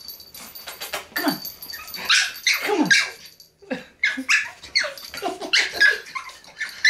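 Pug puppy whining and yipping in a rapid string of short, high cries, many sliding down in pitch: the anxious sound of a puppy afraid to jump down.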